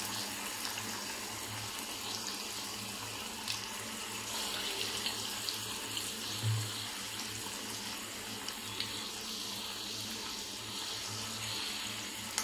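Urad dal pakodas deep-frying in hot oil in a kadai: a steady sizzle of bubbling oil.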